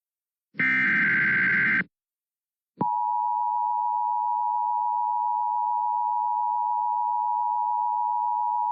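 Emergency Alert System broadcast tones: the last SAME digital header burst, a buzzy data screech about a second long, then after a brief gap the EAS attention signal starts about three seconds in, a steady two-tone beep near 1 kHz that holds without a break.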